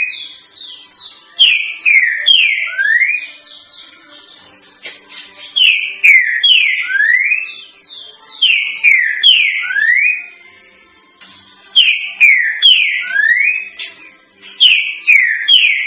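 Green-winged saltator (trinca-ferro) singing the three-note 'boi' song used as a tutor song for young birds: the same loud whistled phrase about five times, roughly every three seconds, each with three short falling notes and then a rising slur.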